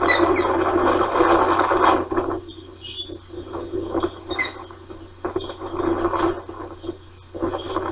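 Osprey giving a few short, high chirps at the nest while fish is passed beak to beak. Bursts of rushing noise, loudest for the first two seconds or so, and a steady low hum run underneath.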